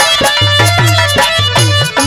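Instrumental accompaniment of a Haryanvi ragni: a hand drum plays a steady rhythm of low strokes that slide up in pitch, under a held melody line.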